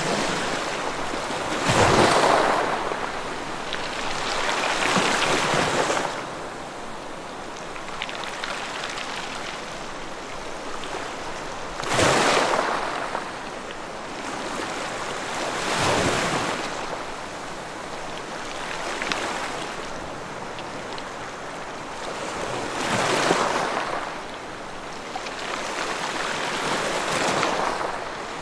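Ocean waves breaking and washing on a shore, the surf swelling and falling away every few seconds, with the loudest surges about two seconds in, around twelve seconds and near twenty-three seconds.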